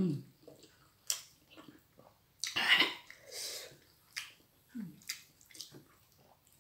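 A person eating very spicy food by hand: wet mouth clicks and lip smacks while chewing, with short low hums at the start and again near the end. A loud hissing breath comes about two and a half seconds in, followed by a softer exhale, as she reacts to the chili heat.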